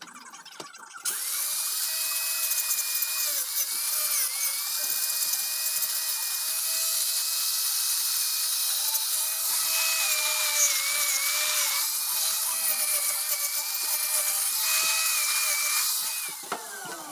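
Angle grinder fitted with a mini chainsaw carving disc, switched on about a second in and cutting into a walnut branch, its high whine dipping in pitch each time it bites into the wood. It is switched off near the end and winds down with a falling whine.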